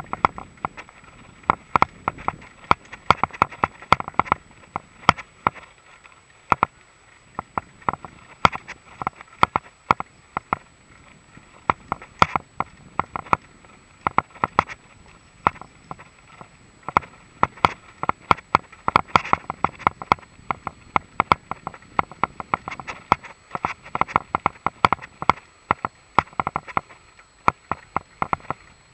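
Full-suspension Mongoose XC Salvo Comp mountain bike rattling over a bumpy grass-and-dirt trail: a rapid, irregular run of sharp clicks and knocks from the bike's chain and frame as it rolls over the rough ground.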